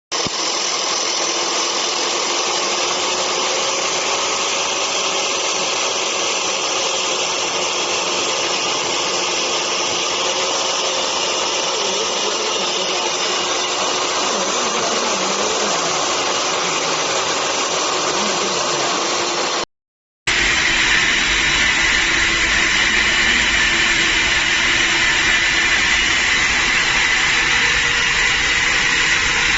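Concrete floor grinder running steadily, a dense mechanical drone. It breaks off for an instant about twenty seconds in and resumes with a changed tone.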